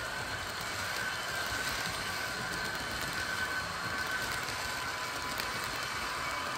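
H0 model train running on the layout's track, a Trix locomotive pushing a rake of IC coaches: a steady rolling noise with a faint high whine.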